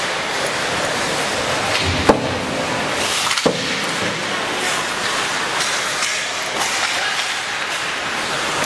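Ice rink game sound: a steady wash of skates on ice and spectator noise, with a sharp crack from play about two seconds in and a smaller knock a little over a second later.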